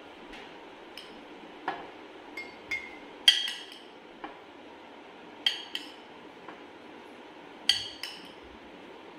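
Metal spoon clinking on a glass bowl and glass jar as jamun (Java plums) are scooped and dropped into the jar: sharp clinks every second or so, the loudest about three seconds in.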